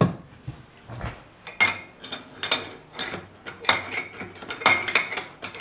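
Lathe chuck's mounting nut being worked with a wrench on the spindle: a string of sharp metal clanks and clicks, about one or two a second and unevenly spaced.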